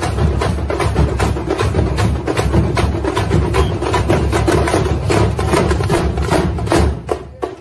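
Loud, fast percussion: drums struck with sticks in a quick, even beat, several strokes a second. Near the end the playing drops away sharply, leaving a few sparser, lighter strokes.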